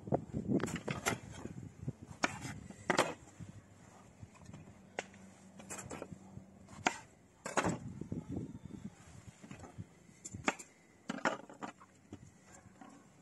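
Knife knocking on a wooden cutting board in scattered, irregular strokes, with a few sharper taps in quick pairs.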